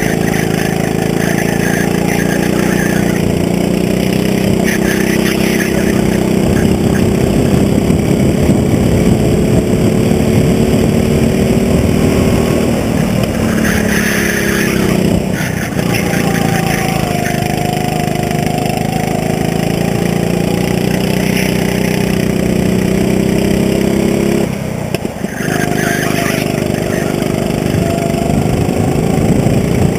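Go-kart engine running hard under the driver, its pitch climbing slowly as the kart gathers speed. The pitch falls away twice, once around the middle and briefly but sharply about 25 seconds in, as the throttle is eased for corners, then climbs again.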